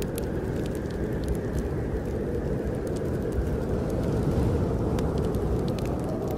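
Steady low roar of snowstorm wind, with a wood fire crackling in a fireplace: scattered small, sharp snaps over the wind.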